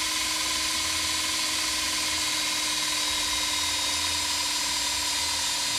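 Cordless drill running steadily, boring a hole through thick-walled aluminium tube held in a vise, with a steady whine.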